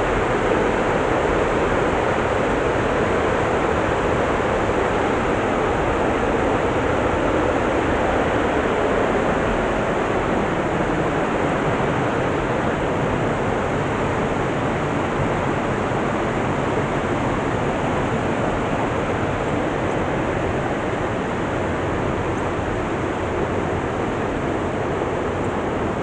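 Steady rush of a waterfall and its stream of falling and flowing water, easing slightly toward the end.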